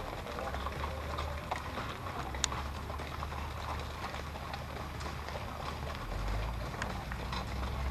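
Hooves of a string of mules clip-clopping irregularly on a rocky trail, with one sharper knock about two and a half seconds in and a low rumble underneath.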